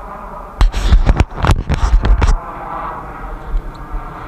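Small boat's outboard motor running steadily. About half a second in, a cluster of loud bumps and rumbles lasts about two seconds before the motor is heard alone again.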